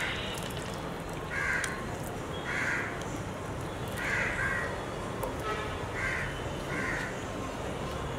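A crow cawing repeatedly, about six harsh caws roughly a second apart, over a steady low background noise.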